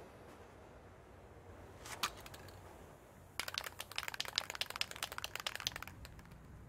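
A faint low hum, then a single sharp click about two seconds in. From about halfway there is a quick, irregular run of dry crackling clicks lasting nearly three seconds.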